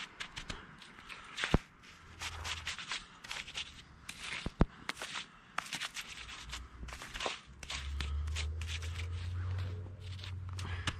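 A rubber hockey puck pressed and rubbed over wet, snow-packed slush in a hole in rink ice, flattening the patch: short crunching scrapes and clicks in irregular strokes. A steady low rumble joins in over the last few seconds.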